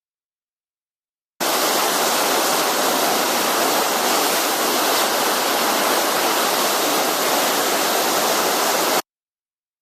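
Steady, even rushing noise of strong wind and breaking surf, starting about a second and a half in and cutting off abruptly near the end.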